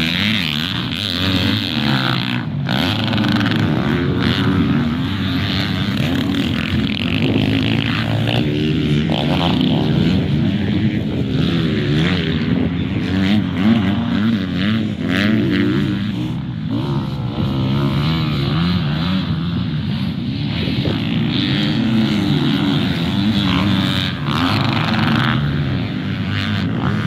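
Motocross dirt bike engines racing on a dirt track, revving up and down continuously as the riders accelerate and back off around the course.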